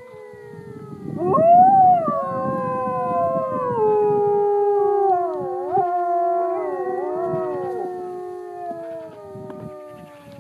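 Several grey wolves howling together in a chorus, long overlapping howls held at different pitches. A louder howl rises in about a second in, and the chorus tails off near the end.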